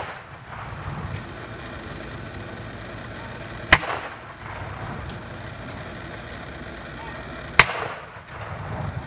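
Rifle volleys of a firing party's salute at a military funeral: two sharp cracks about four seconds apart, each trailing off in an echo.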